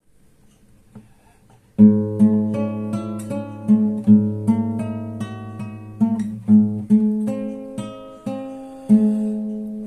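Acoustic guitar music, beginning about two seconds in, with plucked notes struck in a steady pattern a few times a second.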